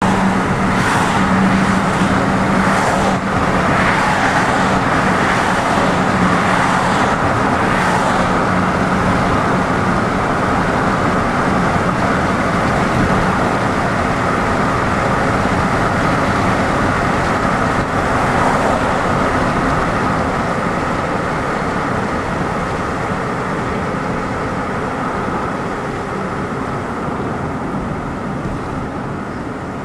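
Steady road and tyre noise heard inside a moving car, with a low hum in the first several seconds; it grows a little quieter toward the end.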